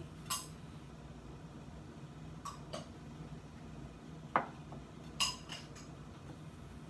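Scattered clinks and taps of kitchen utensils against dishes, a handful spread over several seconds. The loudest is a single ringing clink about four and a half seconds in. A low steady hum runs underneath.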